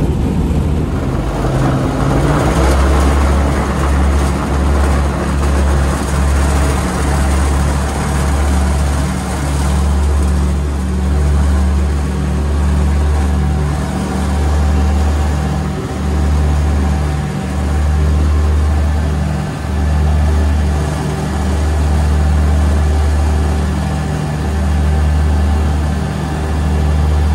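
The engines of a homemade twin-engine light aircraft, heard from inside the cockpit, rise to take-off power about two seconds in. They then hold a loud, steady drone through the take-off run on a grass strip. The low drone swells and dips every couple of seconds.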